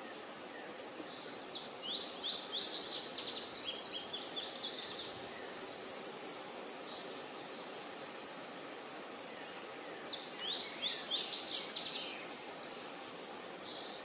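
Yellow warbler singing two songs of quick, high, down-slurred notes, the first starting about a second in and running some four seconds, the second shorter, starting near ten seconds. Steady background noise runs under the songs.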